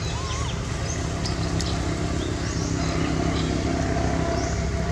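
A steady low engine drone, with short high chirps repeating about once a second over it.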